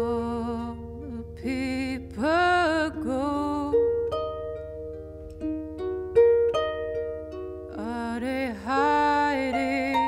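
Pedal harp playing slow plucked notes and chords, with a woman's voice singing two long phrases with vibrato over it, the first about a second and a half in and the second near the end.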